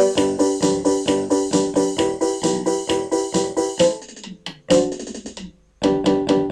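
Closing music: a quick, even pattern of repeated pitched notes, about four a second, that breaks off about four seconds in, then a final chord near the end that rings on and fades.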